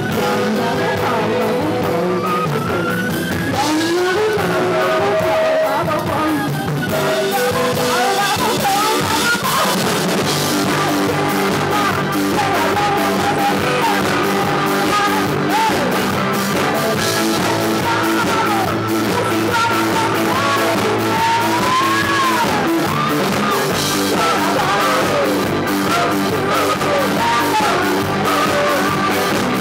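Live rock band playing, with a woman singing lead over the band; her voice glides up and down over a dense, steady backing.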